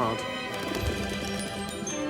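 Background music: a held, sustained chord, with a brief low thud just under a second in.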